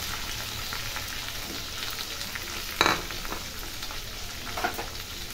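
Chopped tomatoes and grated carrot sizzling steadily in hot mustard oil in a kadhai, with a single sharp clink about three seconds in and a fainter knock near the end.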